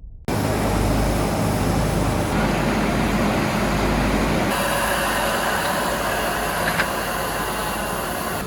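Steady, loud train noise that starts abruptly and shifts in character twice.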